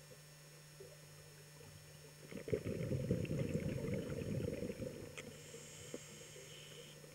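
Scuba diver's exhaled bubbles from the regulator: an irregular crackling rumble lasting about two and a half seconds, starting about two seconds in, followed by a faint hiss. A steady low hum runs underneath.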